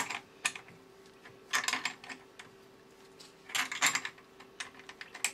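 Metal clicks and a few short rasps from a spanner working the clamp nut on the rotary tool's bracket as it is tightened, over a faint steady hum.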